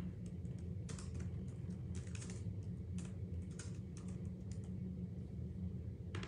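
Typing on a computer keyboard: irregular key clicks, a few a second, over a low steady hum.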